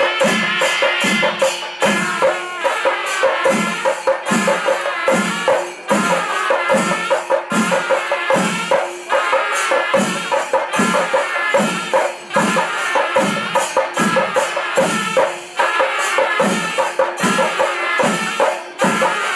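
Panchari melam: chenda drums beaten in a steady, even rhythm with the metallic clash of ilathalam cymbals, over a couple of steady held tones.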